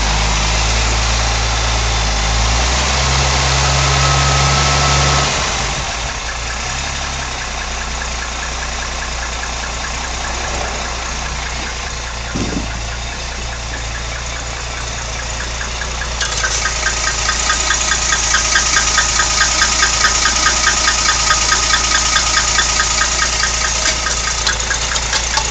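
1964 Rambler engine running faster for the first five seconds or so, then settling to idle. A short knock comes about twelve seconds in. From about sixteen seconds in, a fast, even ticking stands out over the engine, the kind of odd engine noise the car is being recorded for.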